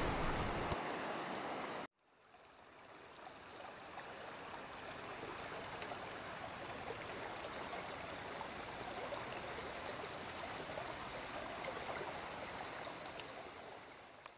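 A shallow river rushing over rocks: a steady sound of flowing water. About two seconds in it cuts out briefly, then fades back in and runs steadily before fading out near the end.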